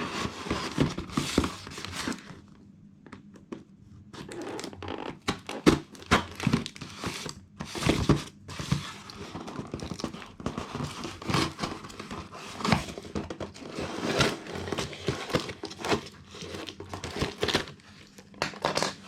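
Courier package being opened by hand: its packaging crinkles and tears in irregular rustling bursts, with a quieter pause a few seconds in.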